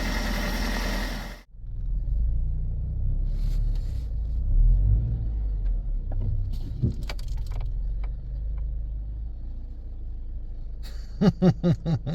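Car engine running with a low, steady rumble; the sound changes abruptly about a second and a half in. Near the end, a quick run of short pulses cuts in.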